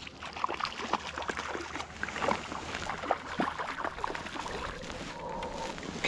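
A small trout splashing and thrashing at the water's surface as it is drawn to a landing net, with water sloshing around it in many short, irregular splashes.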